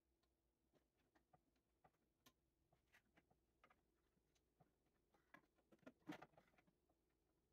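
Near silence, broken by faint, scattered taps and knocks of a wooden drawer being handled and fitted into a cabinet opening, bunching together about six seconds in.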